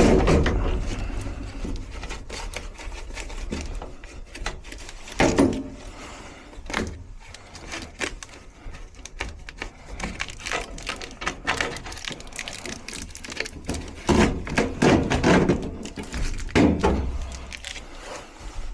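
Irregular clicks, knocks and clatter of hands-on work at a furnace: tools and metal parts being handled in a small enclosed space.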